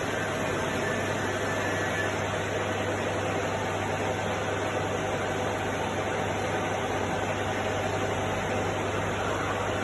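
Deckel FP4A tool-room milling machine running steadily, with a constant motor hum and even mechanical noise.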